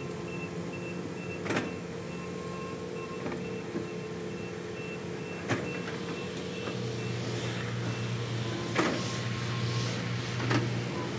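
Diesel construction machinery, an excavator and a backhoe loader, running steadily, with a handful of sharp metallic clanks. A car passes near the end.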